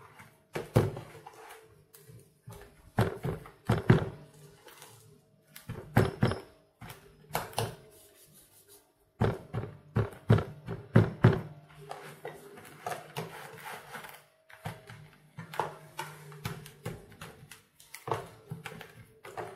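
Irregular knocks and thunks of slabs of pork fat being handled, turned and pressed down in a plastic food container while seasoning is rubbed into them by hand.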